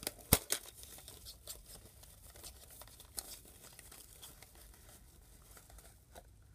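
Small cosmetics package being opened by hand: two sharp clicks in the first half second, then faint crinkling and rustling of packaging.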